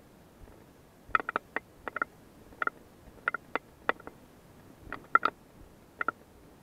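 About fifteen sharp knocks or clicks in irregular pairs and triples, each with a brief ringing tone.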